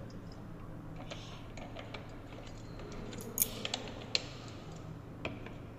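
Scattered light clicks and taps from lab bottles and glassware being handled on a bench, the sharpest about three and a half seconds in, over a low steady room hum.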